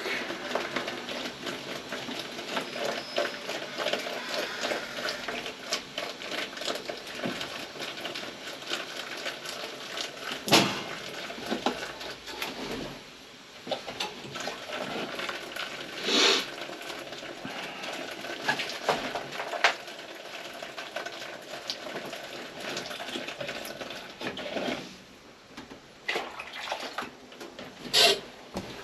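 Water running out of a steam boiler's drain in a steady rush, as the boiler's water level is drawn down to test that the low-water cutoff trips. A few knocks sound about ten, sixteen and twenty-eight seconds in.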